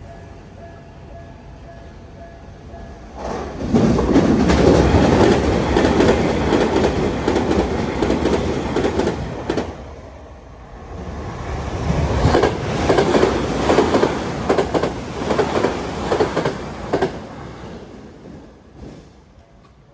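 Tokyu Meguro Line electric trains passing a level crossing at high speed. A loud rush of wheels and motors swells about three seconds in, dips briefly, then a second pass comes with a rapid clatter of wheels over rail joints and fades away near the end.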